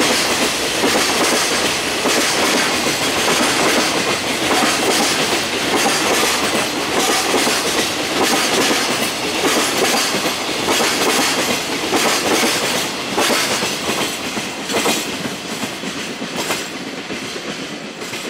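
Freight train's container wagons rolling past, wheels clattering steadily over the rail joints. The sound tails off near the end as the last wagons go by.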